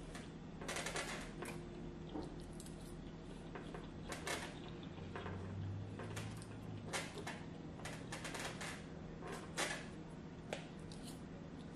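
Eating sounds: a fork scraping and clicking through food in foam takeout containers, with chewing, as irregular short clicks and scrapes.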